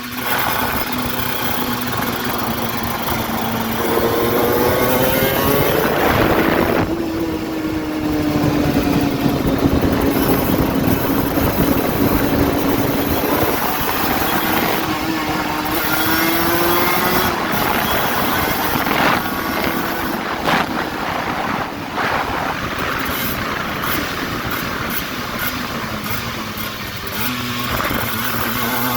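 Aprilia RS125's single-cylinder two-stroke engine running, its revs rising and falling again and again, with a sudden drop in pitch about seven seconds in.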